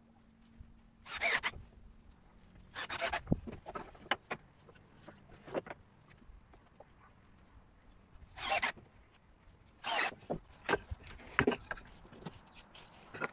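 Wooden fence boards scraping and sliding against each other and the wooden table as they are shifted into place, in a series of short rasps a second or two apart.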